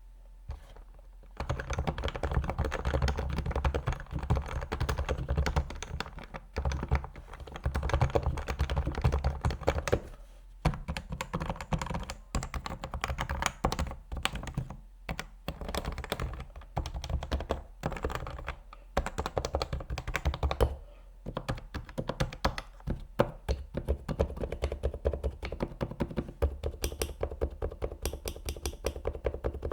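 Fast continuous typing on a computer keyboard: a dense run of key strokes that starts about a second and a half in, with a few brief pauses between bursts.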